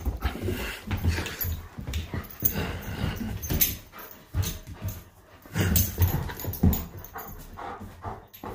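A dog making short, irregular vocal noises while tugging on a rubber ring toy, with scattered clicks and knocks.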